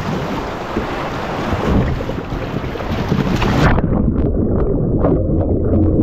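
Whitewater rushing loudly past a camera mounted on a kayak running a river rapid. A little over halfway through, the sound suddenly turns dull and muffled as the kayak capsizes and the camera goes underwater, leaving churning water and bubbling.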